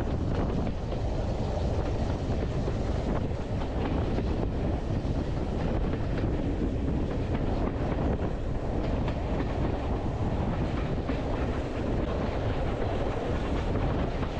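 Steam-hauled passenger train running along the line, heard from an open carriage window: a steady rumble of the coaches on the track with scattered wheel clicks.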